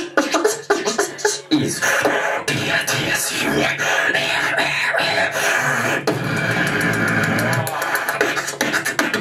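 Solo beatboxing into a handheld microphone: sharp percussive hits at first, then about two seconds in a continuous run of pitched, buzzing vocal sounds, with a fast rapid-fire beat from about six seconds in.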